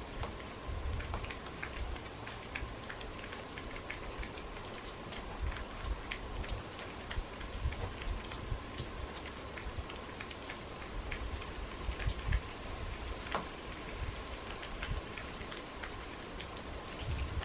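Meltwater from snow dripping off a roof: irregular drips and taps, several a second, over a low rumble that comes and goes.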